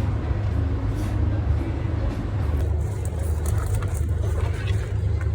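Steady low rumble of outdoor background noise, with faint voices underneath.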